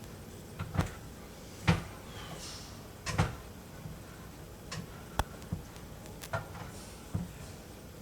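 Kitchen clatter: about ten separate sharp knocks and clicks of cookware and utensils being handled and set down, a few ringing briefly.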